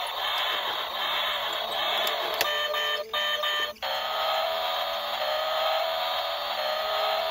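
Battery-powered toy garbage truck playing its electronic sound effect, a steady buzzy whir, with two brief breaks about three and four seconds in.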